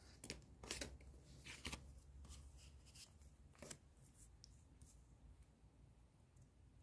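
Faint rustles and clicks of paper Panini stickers being handled and drawn from their packet, several in the first four seconds, then near silence.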